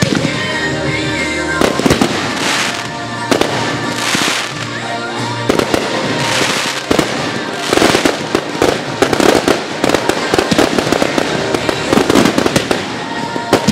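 Fireworks display: rapid bangs and crackle of shells and ground-launched effects firing and bursting, the volleys coming thicker in the second half, with music playing underneath.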